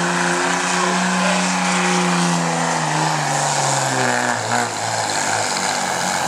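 Dodge Ram diesel pickup's Cummins straight-six running at full throttle while pulling a sled. The engine note holds steady, then drops in pitch from about three seconds in as the load drags the engine down.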